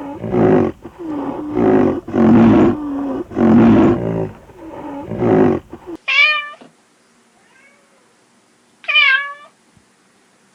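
A series of about five loud, low, drawn-out animal calls, then a cat meowing twice, each meow falling in pitch.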